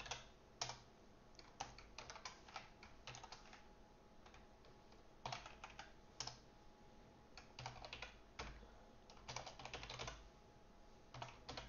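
Faint computer keyboard typing: quick runs of keystrokes broken by short pauses.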